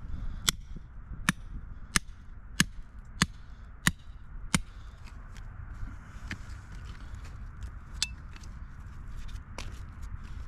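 Steel rock hammer striking a large rock block: seven sharp, evenly spaced blows, about one every two-thirds of a second, then two more single strikes later.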